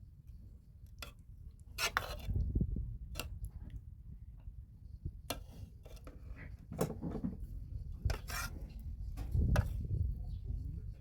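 Dishes and eating utensils clinking and knocking in scattered sharp clicks during a meal, over soft low handling noise.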